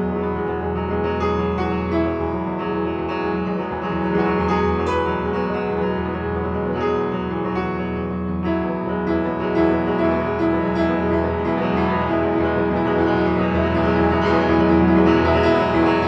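Solo piano playing a flowing new-age piece, with low bass notes held under many overlapping notes ringing together.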